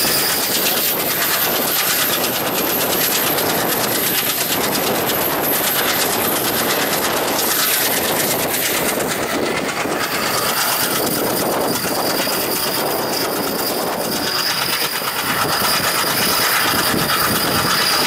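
Passenger train coaches running steadily at speed, wheels clattering over the rail joints, heard from an open coach door.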